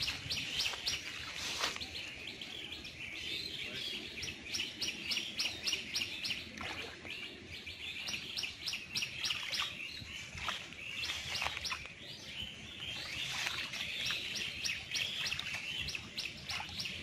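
Several birds chirping and calling all through, with quick runs of short, high repeated notes, and a few brief knocks scattered in.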